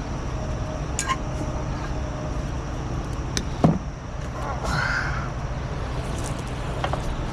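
Truck engine idling steadily, with a few sharp metallic clinks and knocks and a short arched squeal or call about halfway through.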